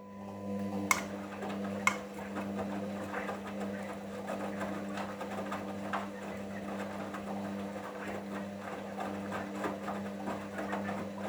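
Hoover washing machine on its main wash: the drum motor runs with a steady hum while the drum turns the load, with an irregular churning and swishing over it. Two sharp clicks come about one and two seconds in.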